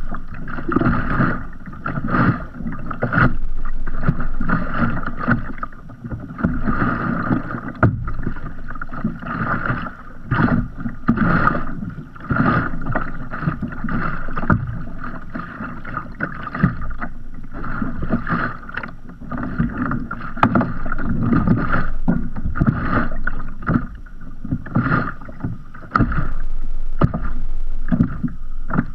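Small sea waves lapping and slapping against the hull of a kayak floating at rest, in an uneven run of splashes.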